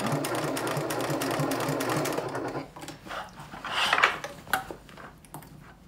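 Janome HD9 Professional sewing machine stitching steadily through layered bag fabric, stopping about two and a half seconds in. Then the fabric rustles as it is shifted and repositioned under the presser foot.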